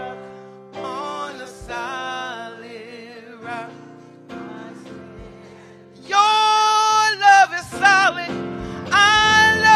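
A woman singing a slow gospel chorus with strong vibrato over held keyboard chords. Her voice grows much louder with long held notes from about six seconds in.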